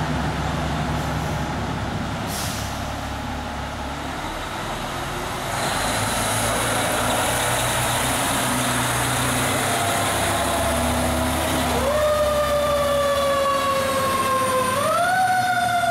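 Fire engine's diesel engine running as the truck pulls out and drives past, with a brief hiss of air about two seconds in and the engine growing louder about five seconds in. About twelve seconds in, its siren starts: a wail that slowly falls, then climbs higher near the end.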